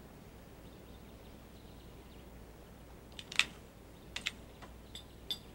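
A handful of sharp, irregularly spaced clicks, the loudest about three and a half seconds in, over a faint low hum.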